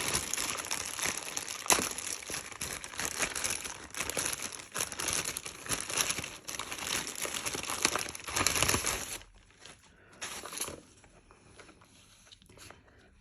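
Parcel packaging crinkling and rustling as it is torn open and unwrapped. The sound stops about nine seconds in, followed by a couple of brief rustles.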